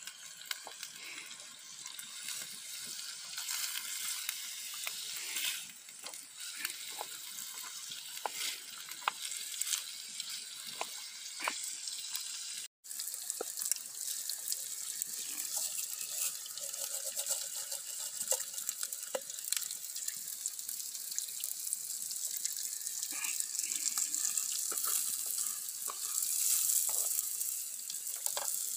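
Food frying in a pan, a steady sizzling hiss with many small crackles and pops.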